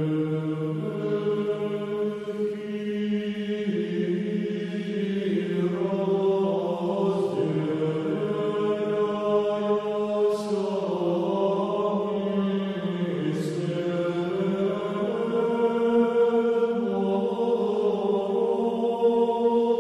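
Slow Orthodox liturgical chant sung by low voices, long held notes that shift in pitch every few seconds, with an occasional brief hiss of a sung consonant.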